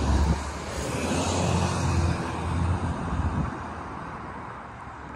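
A passing SUV: its engine and tyre noise are loud at the start and fade away over the first three to four seconds.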